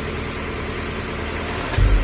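A vehicle engine idling steadily. Near the end a louder, deep, regular thumping starts, about two to three beats a second.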